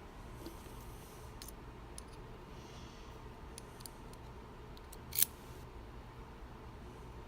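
Small metal lock parts and tools being handled: faint scattered clicks, with one sharper metallic click about five seconds in.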